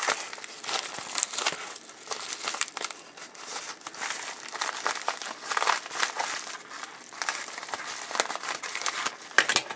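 A mailing envelope crinkling and rustling as it is handled and opened, in irregular spurts of crackle.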